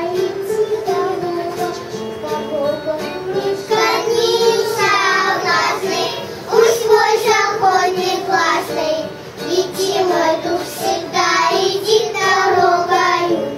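A little girl singing a song solo into a microphone, in phrases with held notes.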